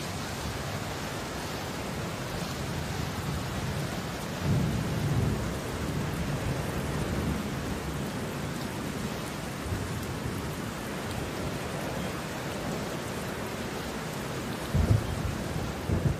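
Steady hiss of rain and wind, with low rumbles about four and a half seconds in and two short low thumps near the end.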